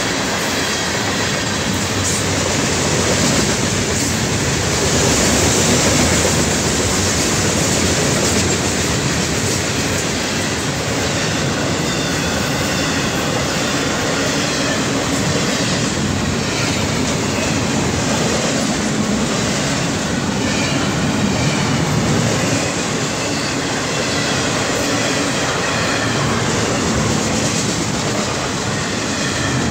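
Freight train cars rolling past close by: a steady rumble with the clatter of wheels on the rails, as tank cars give way to intermodal cars loaded with containers and trailers.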